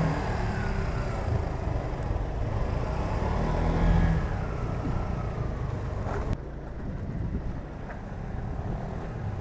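A motorcycle engine running while riding, with road noise. The level rises a little about four seconds in and drops abruptly about six seconds in.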